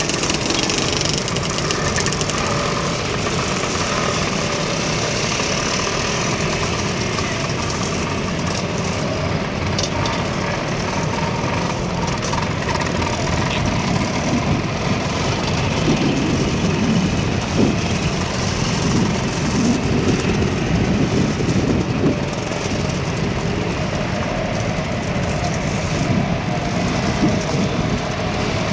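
A stream of vintage two-stroke scooters, Lambrettas among them, running at low speed as they ride past one after another, the engine note swelling and fading as each one passes.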